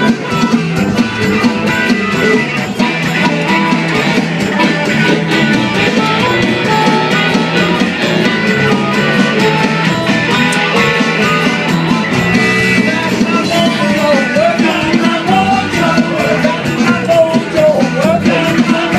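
A live blues band playing, with electric guitar, bass guitar and drums, and a wavering lead line in the last few seconds.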